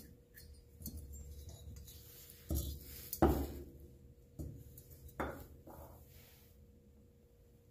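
A few short knocks and light clatter as a Kawasaki FH721D aluminium cylinder head is handled and turned over, the loudest about three seconds in.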